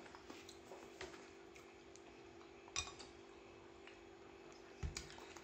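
Quiet kitchen with a faint steady hum, broken by a small glassy click about three seconds in and a dull knock near the end as a drinking glass of water is lifted and set back down on the table.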